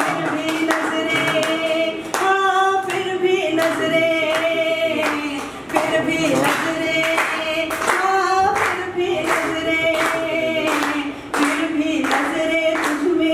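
A woman singing a Hindi song-poem through a microphone in long, drawn-out melodic lines, with hands clapping along in time, about two claps a second.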